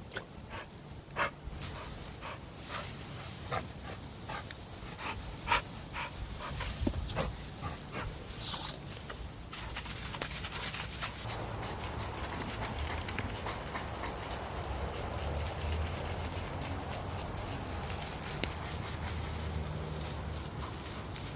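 A dog panting and snapping at the spray of a garden hose, with the hiss and splash of the water: a run of sharp clicks and splashes, then about ten seconds in a steadier rush of water.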